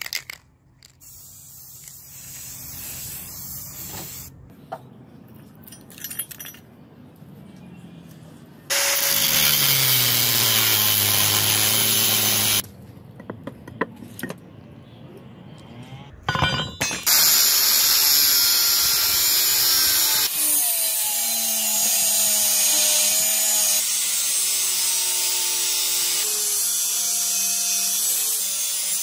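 Angle grinder with a cut-off disc cutting notches into steel, its pitch wavering and dropping as the disc bites. It runs once for a few seconds and then, after a quieter pause with a few clicks, runs steadily through the last dozen seconds.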